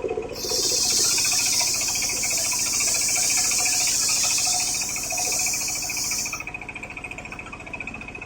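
Homemade circular sawmill blade cutting through coconut-palm wood: a loud, steady, high hiss starts about half a second in and stops about six seconds later as the cut ends, with the machine's steady whine and hum running underneath.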